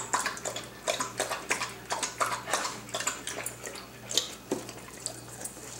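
A dog lapping water from a stainless steel bowl, quick wet splashes with light clinks of the metal, about three to four laps a second, thinning out near the end.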